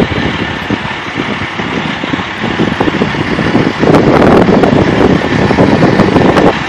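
Utility bucket truck's engine running steadily, louder from about four seconds in.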